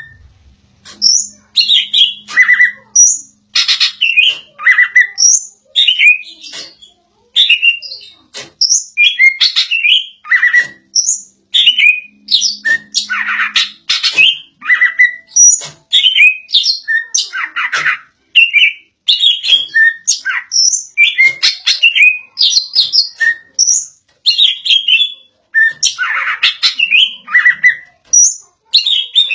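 Cucak ijo (green leafbird) singing insistently: a loud, rapid string of short whistled and chattering phrases that sweep up and down in pitch, with barely a pause between them.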